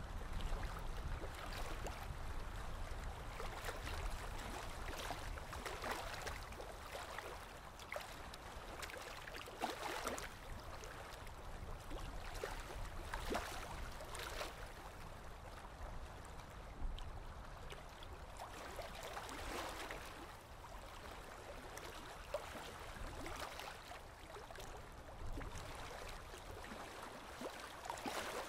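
Small river waves lapping and washing onto a sandy bank, swelling and falling back every few seconds. A low rumble fades out in the first couple of seconds.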